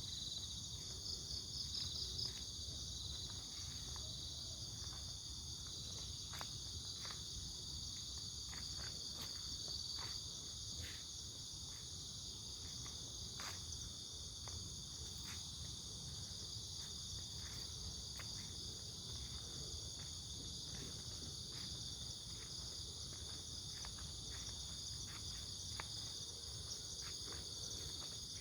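Crickets and other insects chorusing: a steady, layered high-pitched trill, with scattered faint ticks and a low steady rumble beneath.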